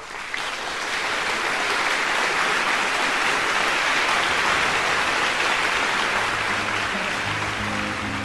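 A group of people applauding with steady clapping. Near the end, low bowed string notes start to come in under it.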